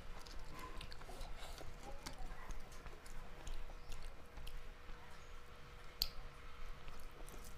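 A person chewing a mouthful of rice and curry with small, irregular wet clicks, while fingers mix the food on a steel plate. There is one sharp click about six seconds in.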